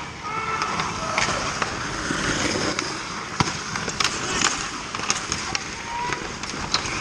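Ice skate blades scraping and carving on the ice, with several sharp clacks of hockey sticks and puck during a scramble in front of the goal.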